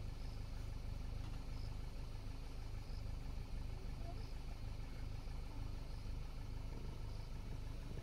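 Car engine idling steadily, a low, even hum.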